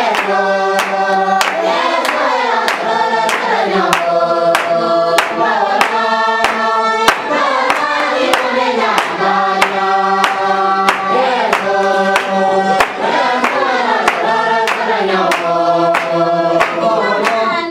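A group of adults singing together and clapping along in a steady beat of about two claps a second.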